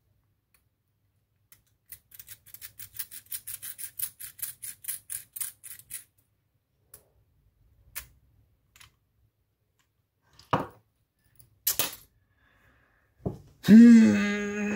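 A quick, even run of light clicks, about six a second for some four seconds, followed by a few single sharp knocks. Near the end a person gives a long groan at one steady low pitch, the loudest sound here.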